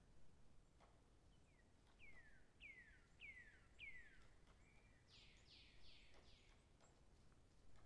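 Faint bird calling: a run of four quick downward-sliding whistles, then a short run of four broader, harsher notes.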